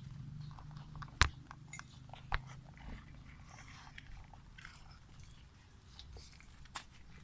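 A pet chewing and crunching food: scattered small clicks, with two sharper knocks about one and two and a half seconds in.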